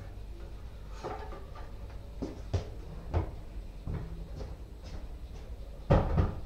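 Wooden stool being lifted and carried along a tiled floor: scattered light knocks and footsteps, then a louder double knock near the end.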